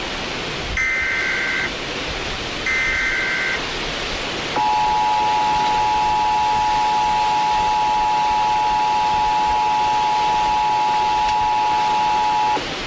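Emergency Alert System tones: two short screeching bursts of the digital SAME header, then the harsh two-tone EAS attention signal held steady for about eight seconds and cut off sharply, over constant hiss. The tones announce an Extreme Wind Warning.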